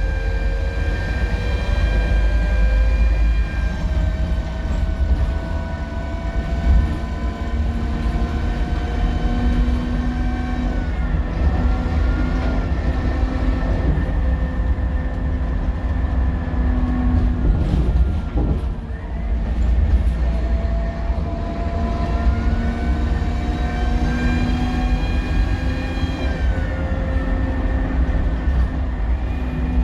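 Scania K230UB bus under way, its engine running with a loud turbo whine and a differential whine. The whining tones slowly rise and fall with road speed, dip briefly about two-thirds of the way through, then climb again as it pulls away.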